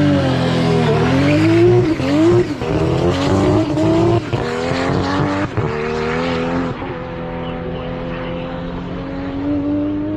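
Race car engine accelerating hard, its pitch climbing and dropping back at each of several quick gear changes. From about seven seconds in it holds a steadier, slowly rising note.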